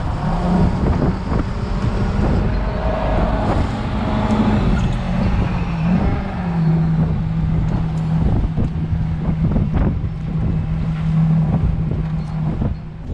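Fishing boat's motor running with a steady low hum that drops slightly in pitch about six seconds in and fades near the end, with wind on the microphone and scattered knocks and clatter on board.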